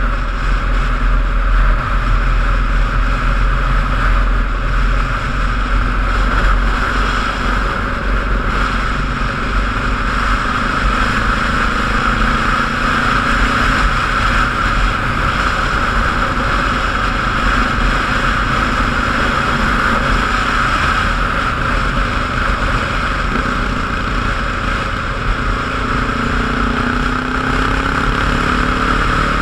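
A road vehicle driving steadily, its engine and road noise carrying over a heavy low rumble. Near the end the engine note rises.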